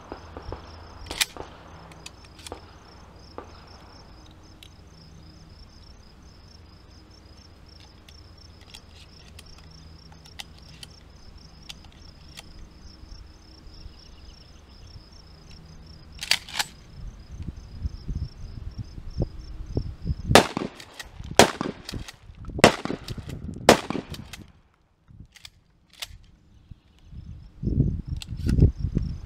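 Insects chirp steadily in a high, pulsing trill. Over it come sharp metallic clicks and clacks of a Norinco HP9 12-gauge pump shotgun being handled and loaded with shells: a few at the start, then a run of about five roughly a second apart in the second half, and low thumps near the end.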